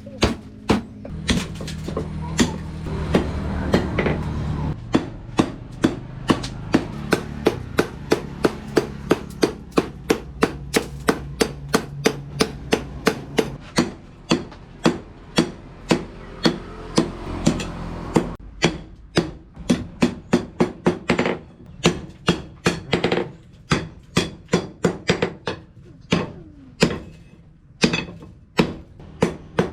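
Hand hammer striking rebar being forged, a steady rhythm of sharp metallic blows at roughly three a second, with brief pauses between runs.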